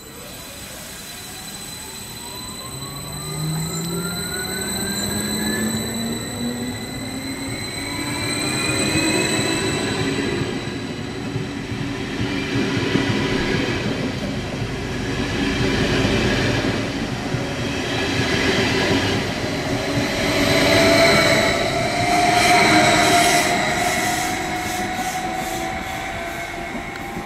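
SBB RABe 511 Stadler KISS double-deck electric multiple unit pulling away from the platform: its traction motors whine, rising in pitch as it speeds up. Wheel and rail noise builds up, with wheel squeal and a rhythmic clatter loudest about two-thirds of the way through.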